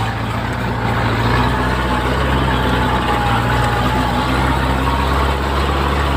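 A four-wheel-drive vehicle's engine idling steadily with a low, even hum, heard from inside the cab.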